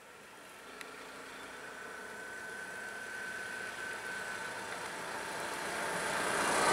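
A vehicle engine running and growing steadily louder as it approaches, with a single faint click about a second in.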